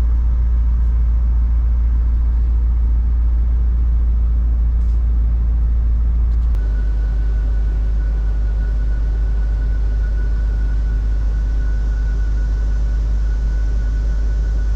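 Land Rover Discovery 2 engine idling steadily just after an oil change. About six and a half seconds in, the low hum steps down slightly and a steady high whine comes in and holds.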